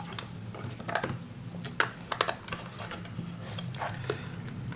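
Irregular small plastic clicks and scrapes of a soldering iron's plug being pushed and wiggled against the soldering station's socket, which it will not go into, over a steady low hum.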